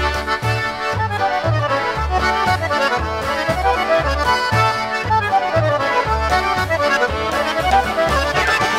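Chicago-style polka band playing an instrumental passage: a squeezebox leads with runs that climb and fall over a steady two-beat bass.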